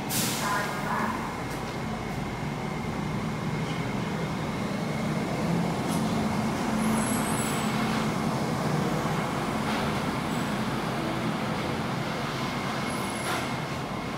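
Rubber-tyred Bombardier light rail vehicle of the Bukit Panjang LRT running along the guideway through the station, a steady rumble that swells gently toward the middle and eases off.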